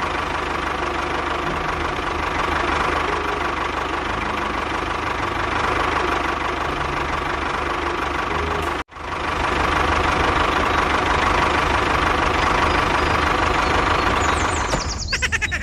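A small engine running steadily. It drops out for a split second about nine seconds in, then carries on.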